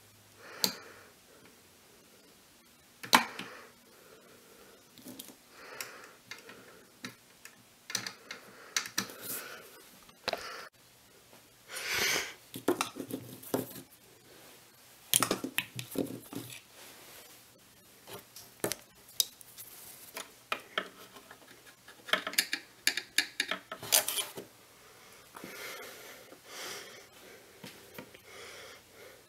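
Irregular metallic clicks and clinks from a Webster-Chicago 346 record changer's trip and pickup-arm lift mechanism as its parts are moved by hand, the loudest click about three seconds in.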